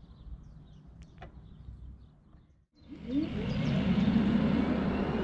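Faint outdoor ambience with a few faint bird chirps, then, after a cut nearly three seconds in, loud tyre, road and wind noise of a car driving on a country road, with a short rising whine at its start.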